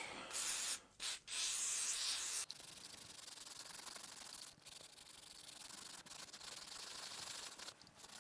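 Abrasive scuffing rust off a metal lathe chuck mounting plate, a hissing scrub. Two louder strokes in the first couple of seconds, then quieter steady rubbing with short pauses.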